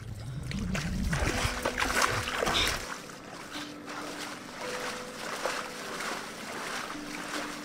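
Repeated splashes of a wooden paddle dipping into lake water as a dugout canoe is paddled, with a low rumble in the first three seconds.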